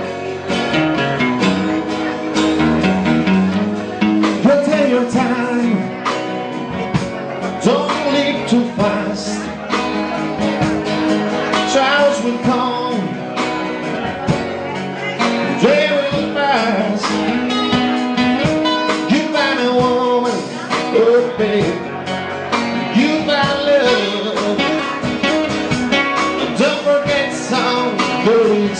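A live band playing a song, with guitar and a singer's voice over it.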